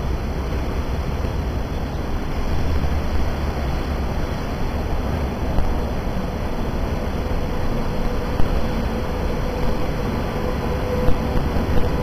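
Steady low rumbling background noise with a few light knocks. A faint steady tone comes in near the end.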